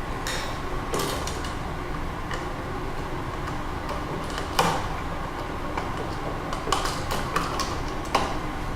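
Scattered small clicks and scrapes of a ground wire and screwdriver being worked against a timer switch's terminal screw, over a steady background hum.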